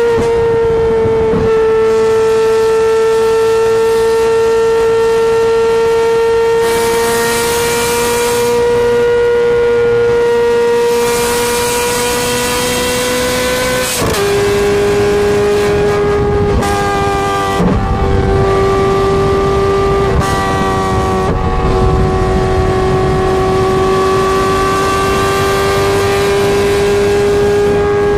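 Ferrari 430 Scuderia V8 through a straight-pipe exhaust, droning loudly at a steady, slowly rising pitch. About halfway through the pitch drops suddenly, then rises and dips a few times.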